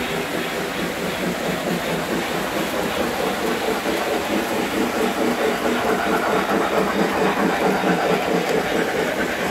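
Lionel O-gauge model trains running on the layout's track: a steady rattling rumble of wheels on rails and motors, a little louder near the end as a steam locomotive pulling red cars rounds the curve.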